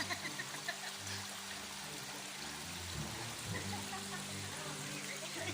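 A stream running steadily over rocks, with soft background music of low held notes that shift every second or so.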